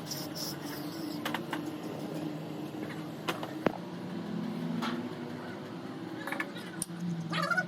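Car engine idling with a steady low hum, and a few sharp clicks, the loudest a little under four seconds in.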